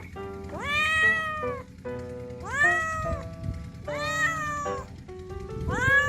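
Feral cat meowing loudly, four separate meows that each rise and then level off or fall, about every one and a half seconds, the last one cut off at the end. Background music plays under the meows.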